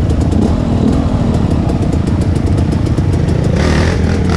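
KTM 250 EXC two-stroke dirt bike engine running at low revs on a rough trail, with a steady rattle of clicks and knocks from the bike. The revs rise near the end.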